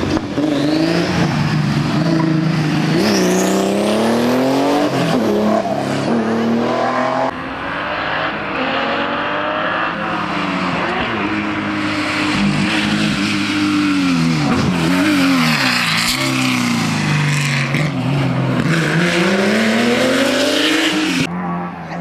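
Porsche 911 air-cooled flat-six rally engines at full throttle, the revs climbing steeply and dropping back again and again through gearchanges and braking as the cars come through the bends. The sound changes abruptly about seven seconds in.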